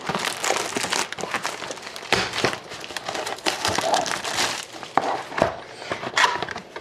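Clear plastic shrink-wrap being pulled off a sealed trading-card box and crumpled, crinkling and crackling in irregular bursts with small clicks.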